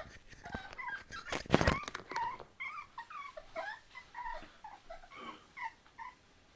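Seven-week-old American bully puppies whining and yipping in many short, high-pitched cries, eager to be fed. A brief clatter about a second and a half in.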